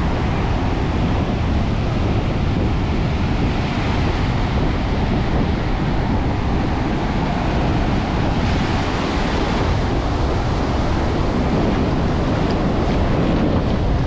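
Ocean surf breaking and washing up the sand, with wind buffeting the microphone. The hiss of the wash grows brighter about eight seconds in as a wave surges up the beach.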